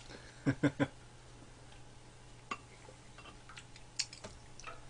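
Eating sounds: three quick sharp clicks about half a second in, then a few fainter ticks, over a steady low hum.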